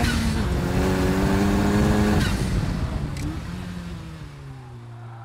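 Ariel Atom's Honda four-cylinder engine pulling hard on track, its note rising with two quick upshifts about half a second and two seconds in, then easing off and falling in pitch as it fades out.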